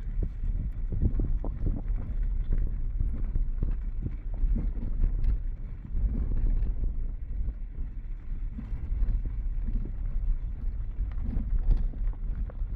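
Kia Picanto driving on a gravel road: a steady low rumble of tyres on gravel, with frequent small knocks from stones and bumps, and wind on the microphone.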